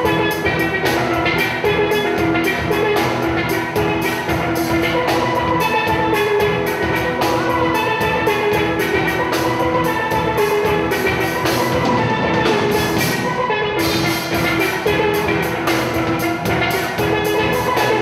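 Steel band music: steel pans play a bright melody over a drum kit keeping a steady beat. The high percussion drops out for about two seconds twelve seconds in, then comes back.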